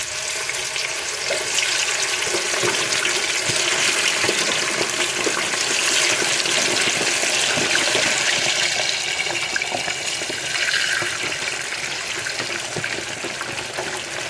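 Raw, uncoated chicken wings frying in hot oil in a deep fryer: a loud, dense sizzle with scattered small pops, swelling over the first few seconds.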